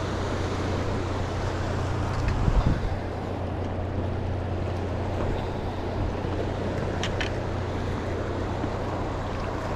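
Steady rush of fast river water over rocks, with a steady low hum underneath.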